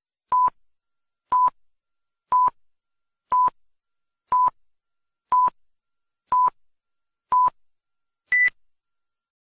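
Countdown timer sound effect: eight short electronic beeps at the same pitch, one a second, then a ninth, higher-pitched beep that ends the count.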